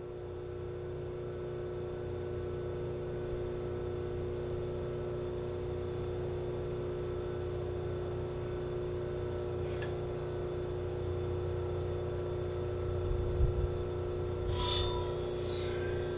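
Motor-driven CBN sharpening wheels spinning with a steady hum and no blade on them. Near the end a knife blade is set back against the wheel, and a high grinding rasp starts.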